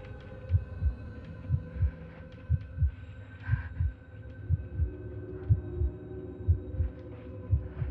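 Heartbeat sound effect: a slow, steady double thump about once a second over a low steady hum, with a faint hiss about halfway through.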